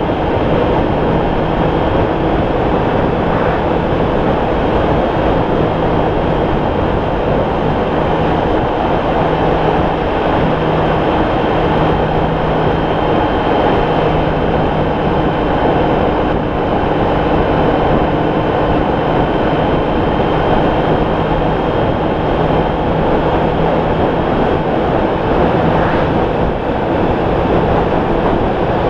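Honda ST1300's V4 engine droning steadily under a constant rush of wind and road noise on the moving motorcycle.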